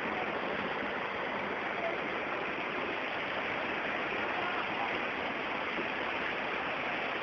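Floodwater rushing in a steady, continuous hiss.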